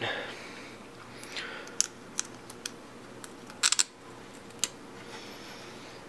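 Scattered light clicks and taps of small parts being handled inside a turntable, with a quick cluster of clicks a little before the four-second mark, over a faint steady hum.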